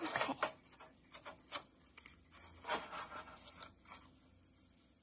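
A wooden stick stirring and scraping butter and sugar in a small bowl, in short, irregular gritty strokes.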